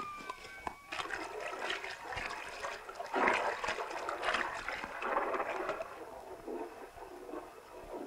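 Water splashing and rushing as a horse wades through a lake. It swells about three seconds in and is loudest there.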